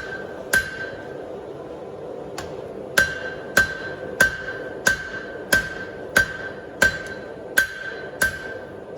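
Hand hammer striking hot steel flat bar on an anvil as it is drawn out, each blow followed by a clear ring from the anvil. One blow, a pause of about two seconds, then steady blows about one and a half a second, over a constant background hiss.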